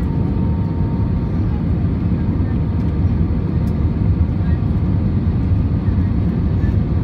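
Steady jet engine and airflow noise heard inside an airliner cabin on approach with the flaps extended, mostly a deep, even rumble.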